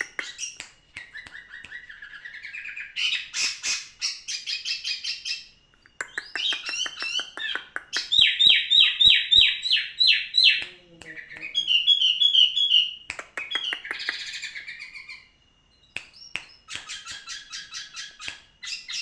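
A songbird singing a long, varied song of fast trills, chattering rattles and a loud run of repeated notes, with brief pauses between phrases. A faint steady high tone lies beneath.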